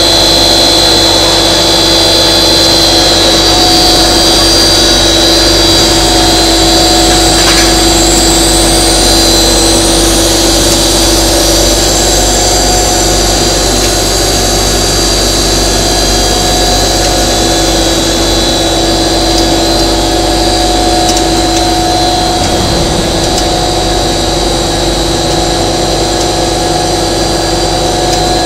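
PE plastic sheet extrusion line running: the extruder's drive motor and gearbox and the calender rolls make a loud, steady machine noise with a constant hum and a high whine that hold unchanged throughout.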